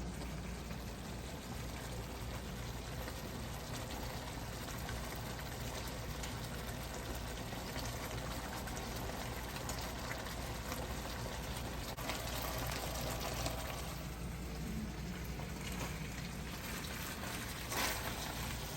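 Panang chicken curry in coconut milk simmering in the pot: a steady bubbling.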